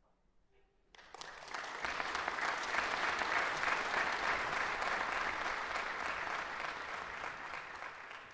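Audience applauding: it starts suddenly about a second in after a quiet moment, swells to full clapping within a second, and slowly tapers off near the end.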